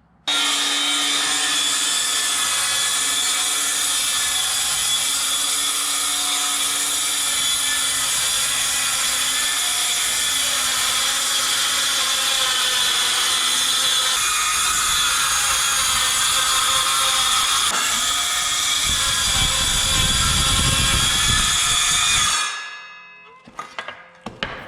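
Milwaukee cordless circular saw, fitted with a 3D-printed track guide, running at full speed and cutting along the track with a steady high whine; the sound gets heavier a few seconds before the end, then the saw winds down as the trigger is released.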